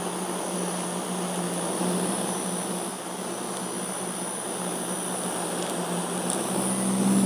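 Small flexible-neck USB fan running, a steady whirring hum of its motor and spinning blades, growing a little louder near the end.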